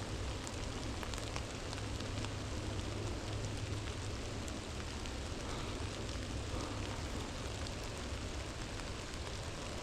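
Steady rain falling, a continuous hiss with scattered drops ticking close by.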